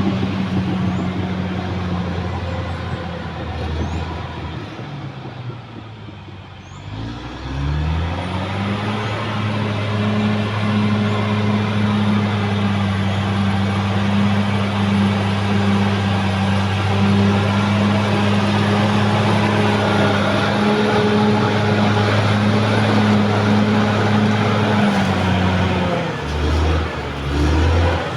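Caterpillar D6R XL bulldozer's diesel engine running. The revs drop about five seconds in, climb back up around seven seconds and hold steady, then ease off and pick up again twice near the end.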